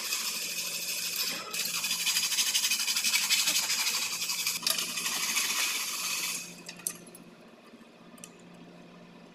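Hacksaw cutting through aluminium box section: a continuous rasping scrape of blade on metal that stops a little past halfway, leaving a few light metallic clicks.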